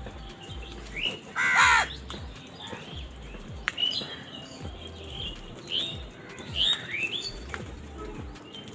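Crows calling: one loud, harsh caw about one and a half seconds in, followed by a scatter of shorter, higher calls.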